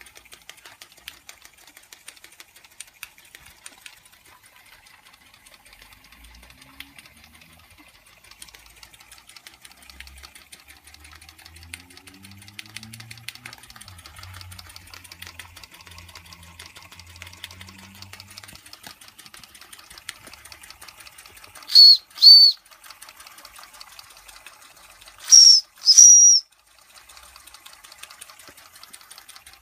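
Two small Märklin live-steam engines with copper vertical boilers running, their pistons making a fast, even ticking with a faint hiss of steam. About 22 s in a steam whistle gives two short loud toots, and about 25 s in it gives two more at a slightly higher pitch.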